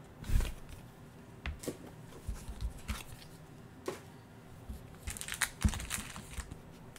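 Trading cards being handled and set down on a tabletop: scattered light taps, slides and a thump just under half a second in, with a short stretch of crinkling around five to six seconds in.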